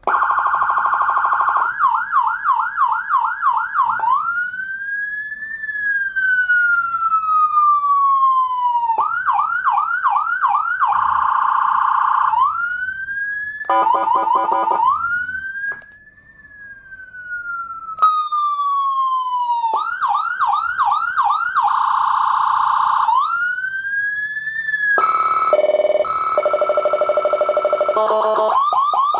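150-watt electronic siren (150HX) sounding through its siren speaker and cycling through several tones: a fast repeating yelp, slow wails that rise and then fall, a steady tone and an alternating hi-lo. Near the end it switches to a pulsing pattern of stepped tones, rather like a ringing telephone.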